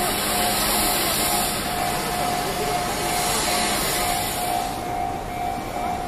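Japanese railway level-crossing alarm sounding, one tone repeating in even pulses, over a loud broad rushing noise that drops away about five seconds in.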